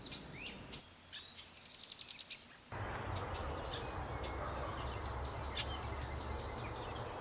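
Small birds singing and chirping, with a fast trill of rapidly repeated high notes starting about a second in. About two and a half seconds in, a steady rushing noise comes in abruptly underneath the birdsong and carries on with it.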